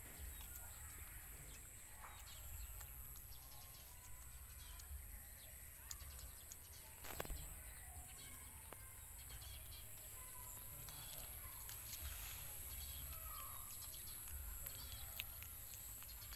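Faint outdoor ambience: a steady high-pitched hiss with scattered faint bird chirps over a low rumble, and one sharp click about seven seconds in.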